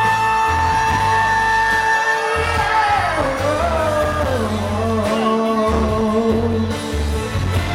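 Live pop band playing with bass and drums, while a singer holds one long high note for about two seconds and then sings a run of notes sliding up and down without words. Faint yelling from the audience.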